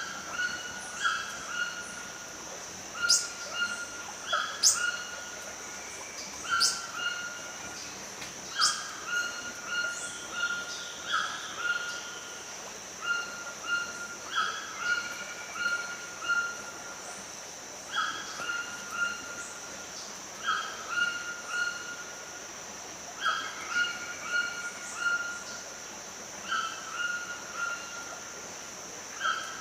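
Forest ambience: a steady high-pitched drone under a short animal call that repeats every second or two, with a few sharp high bird chirps in the first ten seconds.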